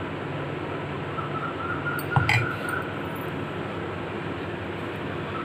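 A single sharp clink of a utensil against a dish about two seconds in, over a steady low room hum.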